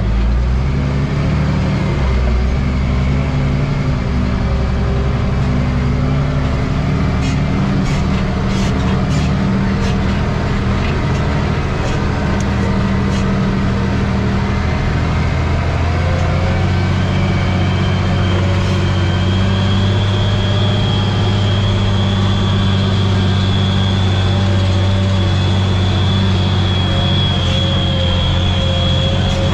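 Tractor engine running steadily under load while pulling a harrow, heard from inside the cab, with a few rattles early on. About halfway through the engine note shifts slightly and a high, steady whine joins it.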